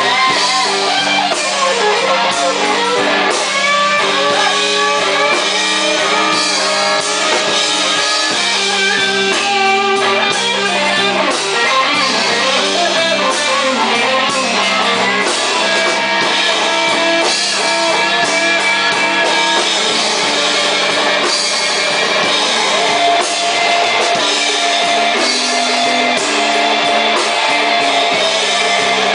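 Live blues band playing an instrumental stretch of a slow blues: an electric guitar lead with bending notes over bass and drums.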